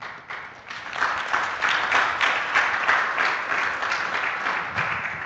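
Audience applauding, a dense patter of many hands clapping that swells about a second in and tapers off near the end.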